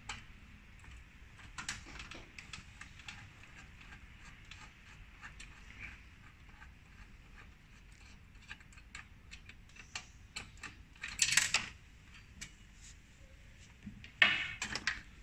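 Scattered light clicks and metallic taps from a screwdriver and hands working at the metal mainboard bay of an inkjet printer, as screws and parts are removed. Two louder short rattles come about eleven and fourteen seconds in.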